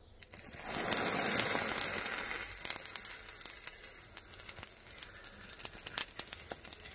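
Potassium permanganate mixed with antifreeze (glycol) catches fire: a sudden loud fizzing hiss about half a second in, lasting about two seconds as the heap flares up. It then settles into scattered crackles and pops as the mixture burns, with a wooden dowel scraping through it.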